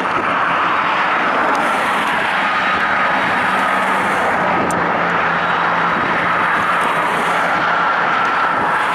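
BNSF diesel-electric locomotive running, a steady engine and cooling-fan rush with a low hum underneath.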